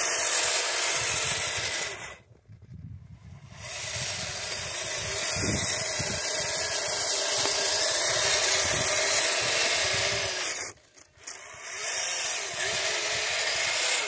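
Twin Traxxas Titan 380 electric motors and gearboxes of a radio-controlled tracked snow vehicle running, a busy whirring and grinding with its plastic tracks. The drive cuts out twice, for about a second and a half about two seconds in and briefly about eleven seconds in, then picks up again.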